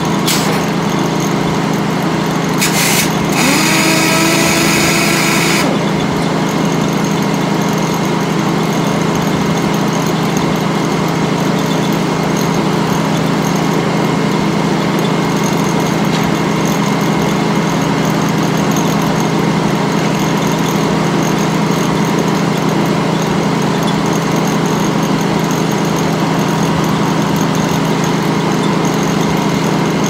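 Sawmill machinery running steadily, the big circular head saw spinning and the belt conveyor moving, a constant hum. About three seconds in, a loud hiss with a rising tone breaks in for about three seconds, then the steady running carries on.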